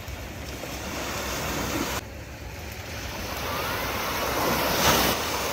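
Small sea waves breaking and washing up a sandy beach. The surf swells to its loudest a little before the end.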